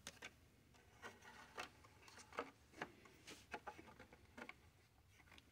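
Faint rustling and light scattered taps of a thin sheet of white plastic being handled and test-fitted against plastic model parts.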